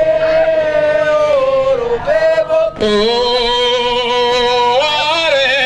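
A lead singer's voice singing a Gawi dance chant in long, drawn-out held notes, with a short break about halfway before the next long note.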